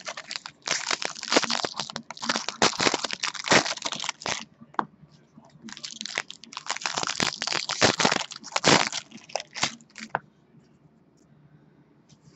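Foil trading-card pack wrappers crinkling and tearing as packs are opened, in two spells of dense crackling that stop about ten seconds in.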